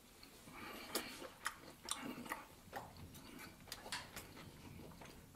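Faint, scattered clicks and taps of a fork against a plate, about a dozen over the few seconds.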